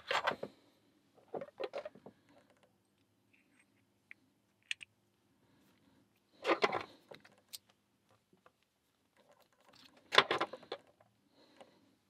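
Small metal clicks and clinks from the parts of a tubular lock, its brass core and chrome housing, being handled and fitted together, coming in four short spells of clicking with quiet in between.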